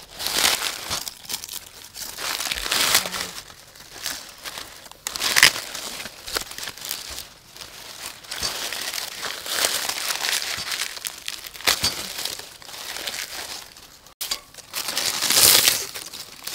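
Dry, charred corn husks being pulled and torn off grill-roasted ears of corn: crinkling, tearing rustles in irregular bursts every second or two.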